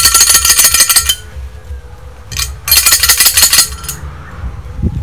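A metallic rattle, like small bells or jingles, shaken hard in two bursts of about a second each with a pause between them.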